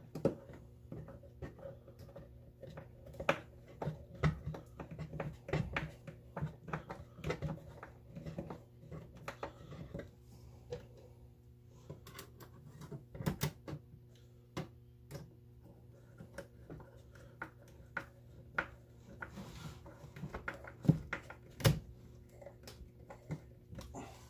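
Small screws being driven by hand through a metal piano hinge into a wooden seat: irregular clicks, taps and scrapes of the screwdriver and screws, over a steady low hum.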